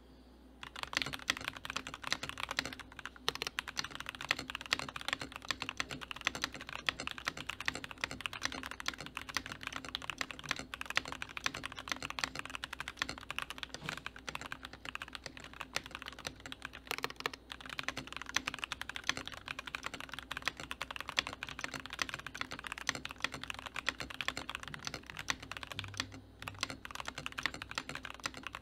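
Fast, continuous typing on a Keychron V3 QMK mechanical keyboard with linear K Pro Red switches and PBT keycaps: a rapid stream of key presses that starts under a second in and breaks off briefly near the end.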